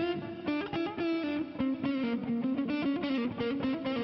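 Instrumental song intro: an electric guitar plays a lead melody of quick single notes with slight bends.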